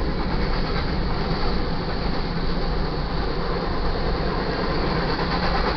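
Freight train of covered hopper cars rolling past at steady speed: a steady rumble of steel wheels on the rails.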